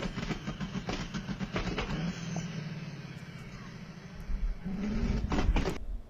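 Tuned car engine held on a two-step launch limiter with the exhaust popping and crackling, a rapid string of sharp bangs over the first two seconds. It eases off, then about five seconds in the engine revs up again with another burst of pops, and the sound cuts off abruptly just before the end.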